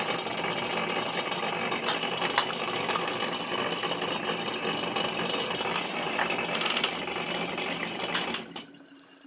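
A motor-driven machine running steadily with a rattling buzz and a few clicks, switched off about eight and a half seconds in.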